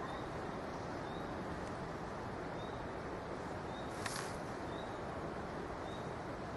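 Woodland ambience: a steady rush of wind with a small bird's short high chirp repeating every second or so, and a brief rustle about four seconds in.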